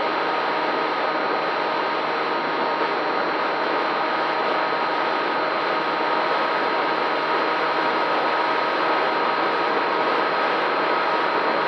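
FPV quadcopter's motors and propellers running steadily: an even whirring hiss with a few constant whining tones on top.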